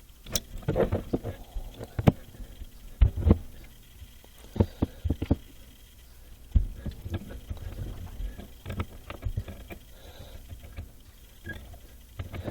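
Irregular knocks, clicks and clatter of hand work under a sink: a wrench and metal plumbing fittings being handled and bumped, with a few heavier thumps.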